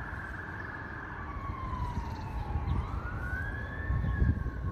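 Fire engine siren: a fast yelping warble changes about a second in to a slow wail that sweeps down, then up, then starts down again. A low rumble runs underneath.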